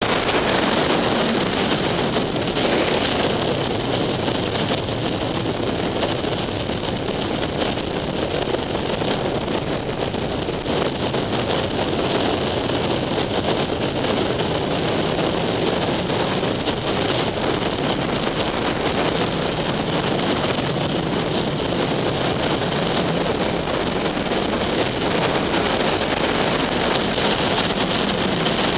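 Steady wind noise rushing over the microphone of a motorcycle-mounted camera at highway speed, with the motorcycle's engine droning underneath.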